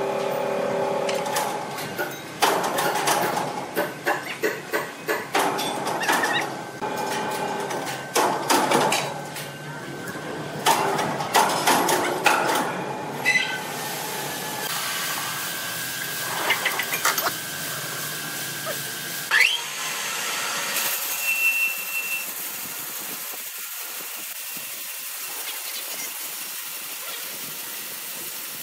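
Irregular knocks and clatter of wood and metal as a large timber beam is wedged and shifted on blocks in a sawmill. About two-thirds of the way through, a steady hiss takes over.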